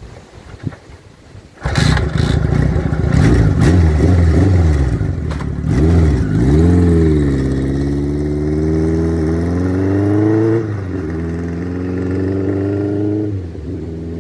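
A classic motorcycle engine fires up about two seconds in, is blipped up and down a few times, then pulls away, its pitch rising through the gears with two upshifts near the end as it moves off.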